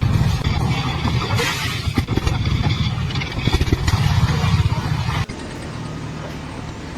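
A motor vehicle engine running with knocks and clatter over its rumble. It changes abruptly to a steadier, quieter engine sound about five seconds in.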